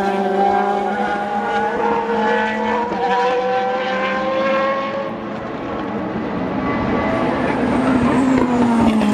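Race car engines at speed on the circuit, several at once. One engine note climbs steadily over the first few seconds. After a brief dip in level, another car's deeper note falls in pitch as it grows louder near the end.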